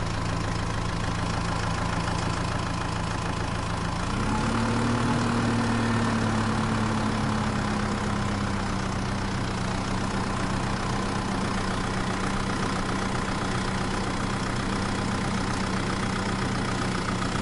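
A toy vehicle's motor drones steadily with a low hum, rising in pitch about four seconds in and then slowly settling back.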